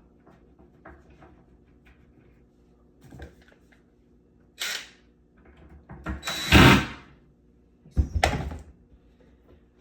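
Impact screwdriver with a Phillips bit running in three short bursts, driving the screws that hold cabinet handles. The second burst, a little past the middle, is the longest and loudest.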